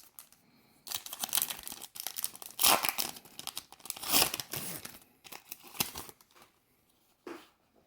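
Foil wrapper of a Pokémon trading card booster pack crinkling and tearing as it is handled and opened, in irregular crackly spurts that are loudest in the middle and die away about six seconds in.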